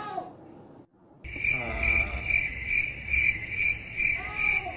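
Cricket-like chirping, a high steady trill pulsing about three times a second. It cuts in abruptly about a second in.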